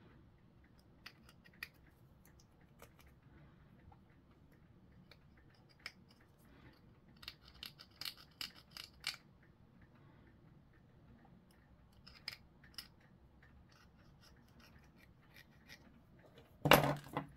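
Faint scraping and clicking of hobby tools cleaning up a spiky plastic miniature part, with a denser run of scratches about halfway through. A single louder knock comes near the end.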